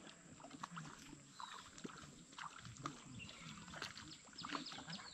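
Faint outdoor background: distant chatter of people and scattered short chirps, with a quick series of falling chirps near the end.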